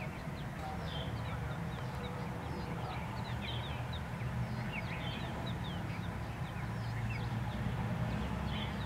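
Birds chirping in many short, quick notes, scattered irregularly, over a steady low rumble.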